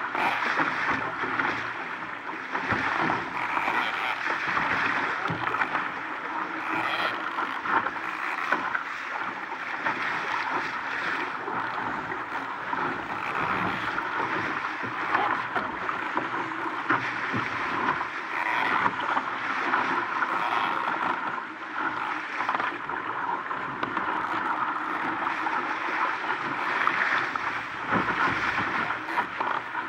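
Water rushing and splashing along the hull of an RS Aero single-handed racing dinghy sailing fast in 15–20 knots of wind: a steady hiss broken by frequent small slaps.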